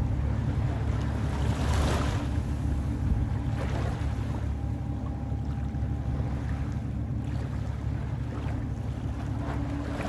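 Small waves washing onto a sandy beach, swelling about two seconds in, again around four seconds and near the end. A steady low rumble of wind on the microphone and a faint steady hum run underneath.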